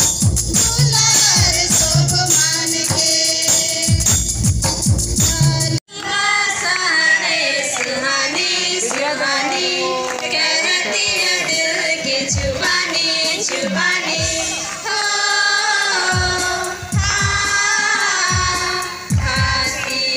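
Children's group singing a hymn live, backed by hand drums and jingling percussion. About six seconds in it cuts abruptly to another children's group singing, with occasional drum strokes.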